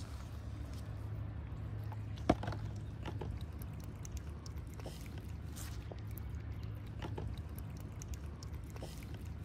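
A cat eating from a plate of wet food and milk: soft, irregular clicks of lapping and chewing, with one sharper click about two seconds in, over a steady low hum.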